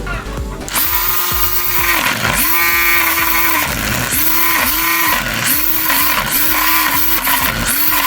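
Small motor of a homemade mini lawn mower, repeatedly speeding up to a steady whine and dropping away again, about eight times in quick succession.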